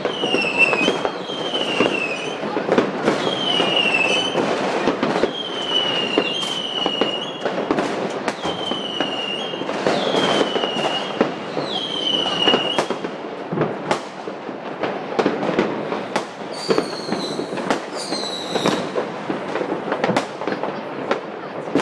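Dense consumer fireworks: continuous bangs and crackling from many firecrackers and rockets going off at once. Over them come high whistling fireworks, each whistle falling in pitch, about one a second through the first half and a few more near the end.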